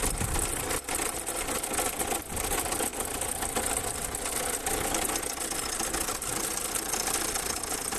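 Car engine running with a steady abnormal mechanical noise that came on after the car sat for a few days, bad enough to be taken as a sign that the engine needs replacing.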